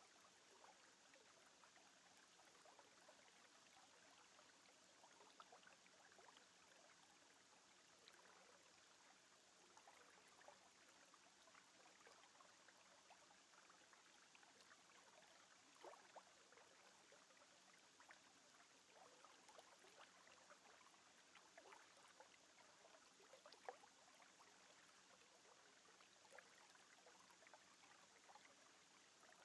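Near silence: a faint steady hiss with scattered tiny crackles.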